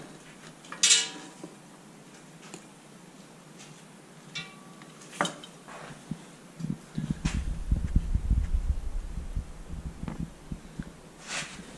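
Cylinder head from a Kohler KT-17 engine knocked or set down with a sharp ringing clink about a second in, followed by scattered clicks and knocks of parts being handled. Near the middle, a low rumble of handling noise sets in as the camera is moved in close, lasting about three seconds.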